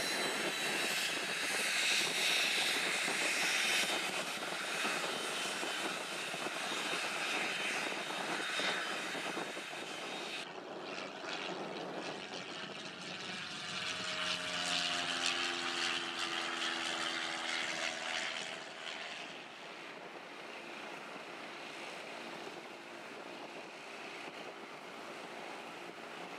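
A Hawker Beechcraft Premier 1's twin turbofans whine and hiss steadily as the jet taxis. About ten seconds in this cuts to a Cessna 172's propeller engine passing overhead, its pitch falling as it goes by. From about two-thirds of the way through, a Beechcraft Bonanza's propeller engine runs steadily and more quietly at low power on the ground.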